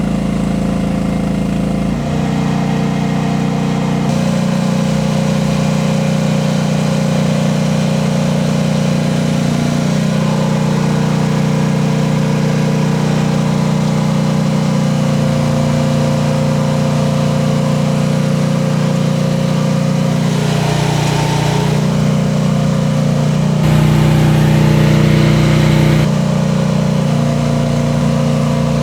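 Rippa R10 mini excavator engine running steadily while the machine works a load of about 350 pounds on its arm. The engine note dips briefly about twenty-one seconds in and gets louder for a couple of seconds shortly after.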